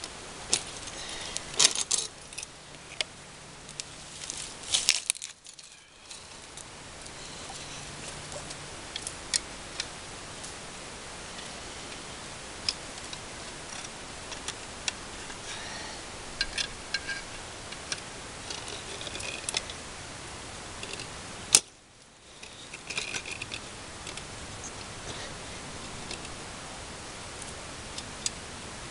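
Scattered metallic clinks and jingles from a steel trap's chain being handled, over a steady background hiss. The sound drops out briefly twice.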